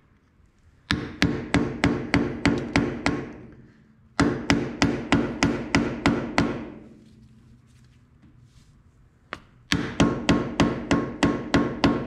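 A hammer tapping a screwdriver against the grease cap of a 1970 Minneapolis Moline U302's front wheel hub to work the cap loose. Three runs of quick metallic strikes, about four a second, each ringing briefly, with short pauses between the runs.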